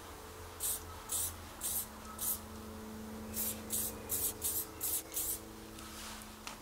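Aerosol spray-paint can hissing in about ten short bursts, each a fraction of a second: four spaced about half a second apart, then after a short pause a quicker run of six.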